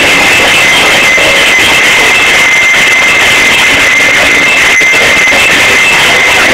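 Very loud dance music in a club, recorded overloaded so that it sounds as a dense, flat wall of sound, with a steady high synth tone and a pulsing one over it.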